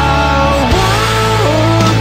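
Rock music: guitar lines sliding up and down in pitch over a steady bass.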